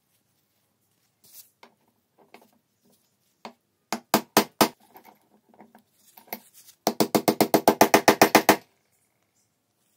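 Hammer blows on a pin punch driving the shaft out of a speedometer's drive housing clamped in a bench vise. A few light taps come first, then four hard metal strikes about four seconds in, then a quick run of about fourteen strikes, roughly eight a second, near the end.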